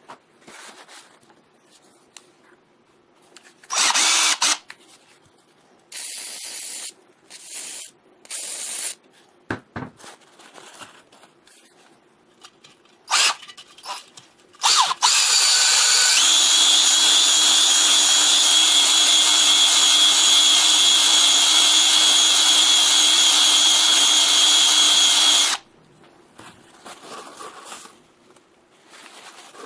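A handheld power tool runs in a few short bursts, then steadily for about ten seconds with a steady whine, and cuts off suddenly.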